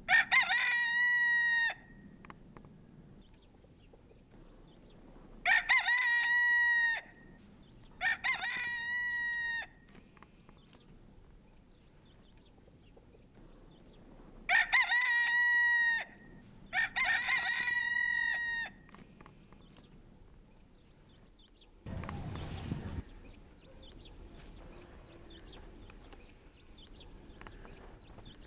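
Pavlovskaya rooster crowing five times, each crow about a second and a half long, coming in pairs a few seconds apart. About two-thirds of the way through there is a brief rush of low noise.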